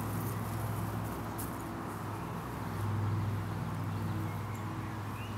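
Steady low motor hum, swelling a little about three seconds in.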